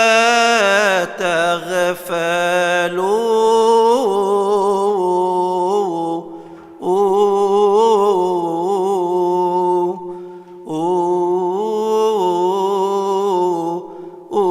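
A solo male voice chanting a Coptic Orthodox hymn in long, melismatic held notes that waver and turn. It breaks off briefly for breath a few times.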